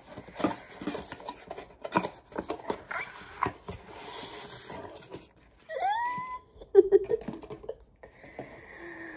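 Packaging being handled and opened: rustling with scattered clicks and taps. About six seconds in comes a short rising cry, then a sharp click.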